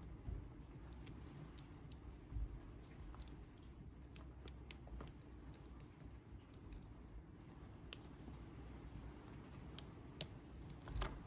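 Faint, irregular clicks of a lock pick setting the pins of a 50 mm FLAG by CISA pin-tumbler padlock under tension, with a denser run of clicks near the end.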